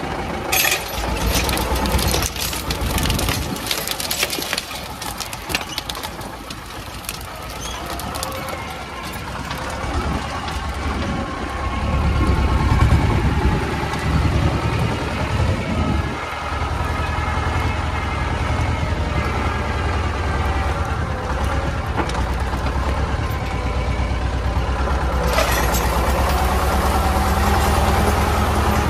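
Władimirec T-25 tractor's two-cylinder air-cooled diesel running steadily while dragging harrows across the plot. There are sharp clanks in the first few seconds, and the engine grows louder from about halfway through.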